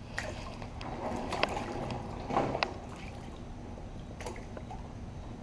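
Water sloshing and lapping against a plastic kayak hull, with a few light clicks and knocks scattered through.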